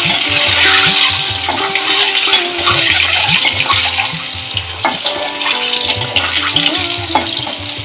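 Peeled boiled eggs sizzling as they fry in hot oil in a metal kadai, with a few sharp clinks of a metal spatula against the pan as they are turned. Background music with held notes plays underneath.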